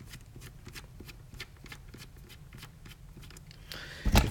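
Small Torx screws being turned out of a knife's handle and pocket clip with a precision T6 Torx driver: a run of faint, irregular metal ticks and clicks, with a louder thump near the end.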